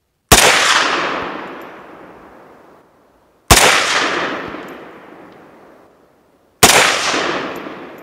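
Three single shots from an AK-47 in 7.62×39mm, about three seconds apart, each followed by a long fading echo.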